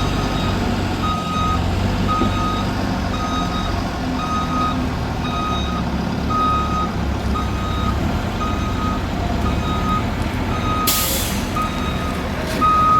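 Heavy diesel truck's engine running under a reversing alarm beeping steadily, about twice a second. A short burst of air hiss about eleven seconds in.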